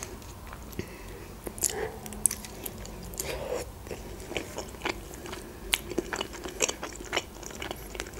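Close-miked chewing of a khinkali dumpling: soft mouth noises with many short clicks and smacks scattered throughout.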